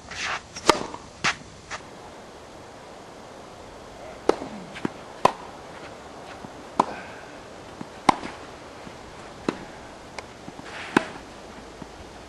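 Tennis balls struck by rackets in a rally: sharp pops of ball on strings about every second and a half, with softer bounce clicks between them.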